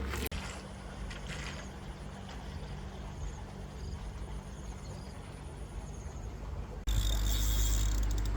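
Quiet outdoor ambience: faint high insect chirping over a low steady hum. About seven seconds in it cuts suddenly to a loud low rumble.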